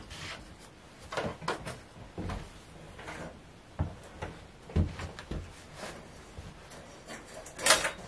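Scattered knocks and clatter of plastic feed cups and a wire rabbit cage being handled and set down, with a few dull thumps midway and a louder rattle near the end.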